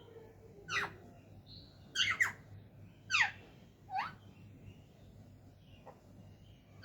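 Parrot giving short calls, each sweeping quickly down in pitch, about six in all with two in a quick pair about two seconds in.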